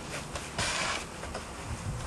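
Sheet-metal access-door frame being worked into a cut opening in fiberglass duct board, with a scrape lasting about half a second shortly after the start and light knocks of metal and board being handled.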